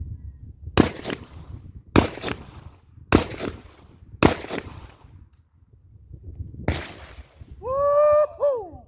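Dickinson pump-action shotgun fired five times at roughly one-second intervals, with a longer pause before the fifth shot. Near the end comes a short, high call that holds its pitch and then falls.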